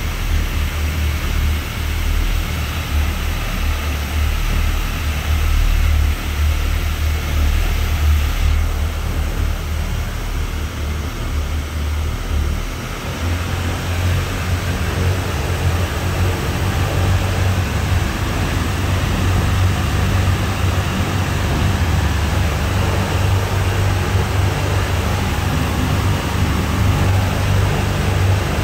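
Brand-new Rotec R2800 seven-cylinder radial aircraft engine running steadily on a test stand during its first warm-up run. Its deep drone steps up slightly in pitch about halfway through.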